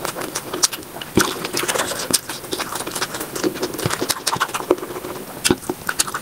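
Wet squelches and quick clicks of a bare hand mixing rice with curry gravy on a metal plate, with mouth chewing and smacking, played at triple speed.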